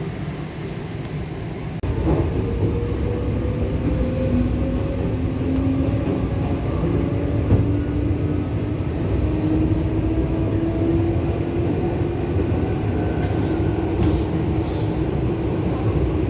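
EP2D electric multiple unit running, heard on board: a steady rumble of wheels on rail with the traction motors' whine slowly rising in pitch as the train picks up speed. The rumble gets suddenly louder about two seconds in.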